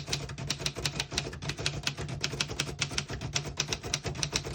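Keys of a 1941 Royal Signet manual portable typewriter being typed at a steady pace, about five or six crisp typebar strikes a second against the platen.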